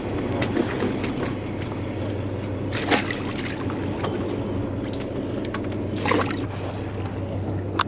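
Charter fishing boat's engine running with a steady low hum, under water sloshing and a few short knocks and splashes as rockfish are handled over a tub of water on deck.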